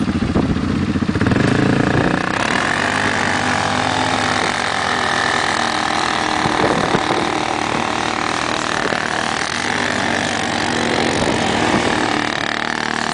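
ATV engine running: a deep throb for the first two seconds, then a steady, higher engine drone.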